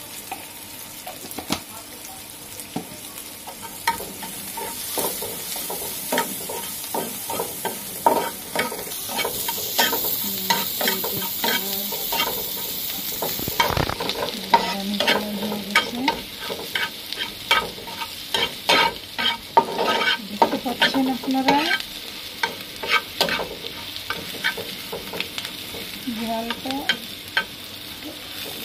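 A steel spatula scrapes and taps against a nonstick frying pan while egg, onion and dried red chillies fry in oil. The pan sizzles throughout, and the hiss grows louder for a few seconds in the middle.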